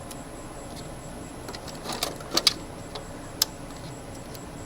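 Metal hand tools clinking and clicking as they are set into a toolbox: scattered sharp clicks, the loudest two in quick succession about two and a half seconds in.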